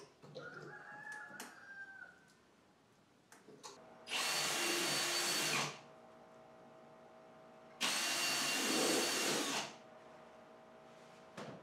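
Cordless drill running in two bursts of about two seconds each, some two seconds apart, drilling small holes along the edge of a plywood boat panel for the stitching wire. Quieter handling sounds come in the first two seconds.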